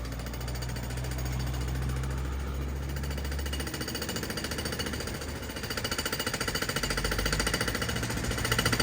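Fast, even, rhythmic pulsing of a heavy diesel truck engine going by, over a low drone, growing louder in the second half.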